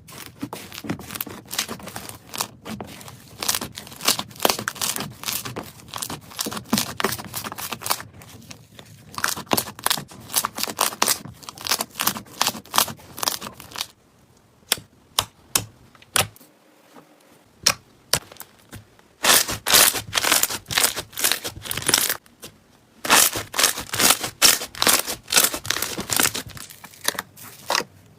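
Slime being squeezed and worked by hand, with rapid crackling and popping. The pops thin out to a few scattered ones for several seconds past the middle, then come thick and fast again.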